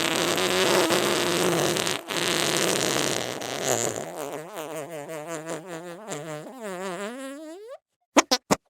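Comic fart sound effects. First comes a long, raspy, noisy blast with a short break about two seconds in. It turns into a pitched, wobbling sputter that rises in pitch as it stops. A few quick, short pops follow near the end.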